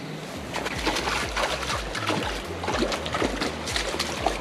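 Hooked trout thrashing at the water surface: irregular slaps and splashes, starting about half a second in, over the trickle of running water.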